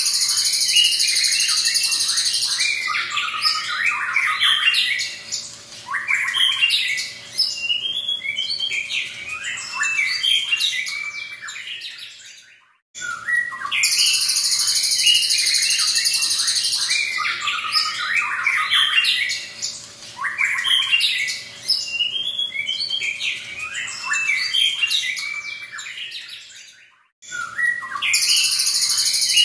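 White-rumped shama (murai batu) singing: a loud, harsh, rasping buzz of about two and a half seconds, then a long run of varied whistled and chattering phrases. The same song sequence repeats about every 14 seconds, each time after a brief gap.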